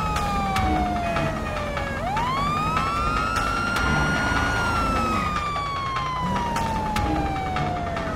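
Siren-like wailing tone: it falls, sweeps up sharply about two seconds in, holds, then slowly falls again, with a second overlapping tone, over a low rumble and scattered sharp clicks.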